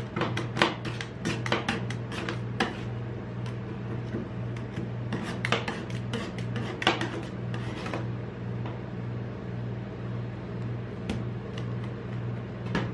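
Metal spatulas chopping and scraping ice cream on the frozen steel plate of a rolled-ice-cream pan: quick clicking taps over the first few seconds, then slower scrapes and spreading strokes. A steady low hum runs underneath.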